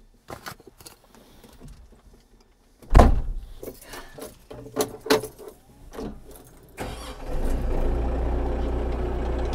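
A loud thump about three seconds in and a few smaller knocks. Then the Kioti RX7320 tractor's diesel engine is cranked with the key on a cold start, catches about seven seconds in and settles to a steady idle.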